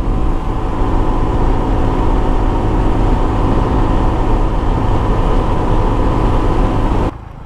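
Honda Pop 100's small single-cylinder engine running at a steady cruising speed, heard with heavy wind rush on the handlebar microphone. The sound drops off abruptly about seven seconds in.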